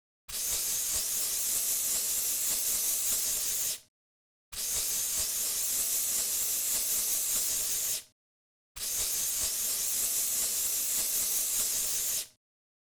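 Narrow-nozzle aerosol insecticide can (cockroach spray) spraying in three long hisses of about three and a half seconds each, with short pauses between them.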